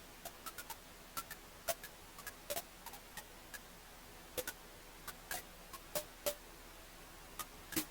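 Wood fire crackling in a fireplace: irregular sharp pops and snaps over a soft steady hiss, with a few louder pops in the second half.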